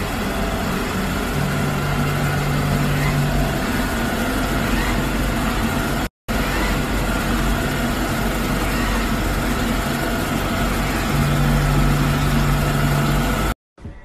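Robot vacuum cleaner running with a steady whir. A low hum comes in twice, for about two seconds each time.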